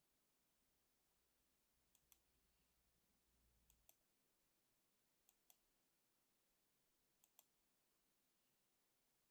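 Faint computer mouse button clicks: four quick double clicks, one every second and a half or two, against near silence.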